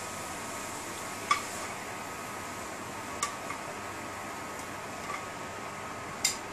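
Metal tongs clicking against the frying pan and the slow cooker pot as chicken pieces are lifted across. There are three sharp clicks about two seconds apart and a fainter one, over a steady background hiss.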